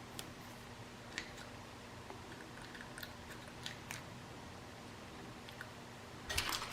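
Faint scattered clicks and taps of small door-knob hardware being handled, then near the end a loud crinkling of packaging starts up.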